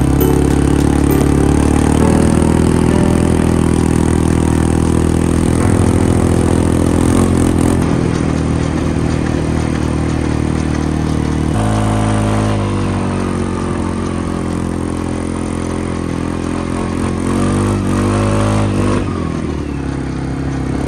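Engine of the small handlebar-steered vehicle towing a sled on a rope, running steadily, with its pitch shifting about twelve seconds in and rising and falling briefly near the end as the throttle changes.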